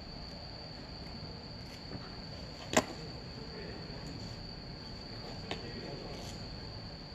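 A single sharp smack of a pitched baseball into the catcher's mitt about three seconds in, with a fainter click a few seconds later. Crickets chirr steadily throughout.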